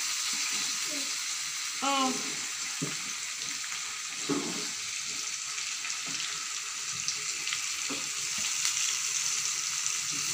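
Fish steaks sizzling steadily as they shallow-fry in hot oil in a pan, with occasional light clicks of a slotted metal spoon against the pan as they are turned and basted.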